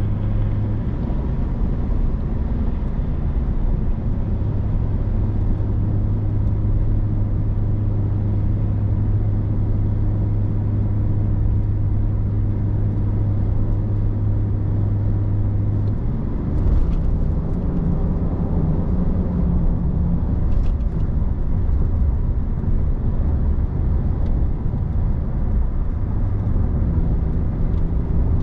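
3.0-litre Duramax LM2 inline-six turbodiesel running hard under load up a long grade, a steady drone. About halfway through the engine note changes and settles onto a higher steady tone.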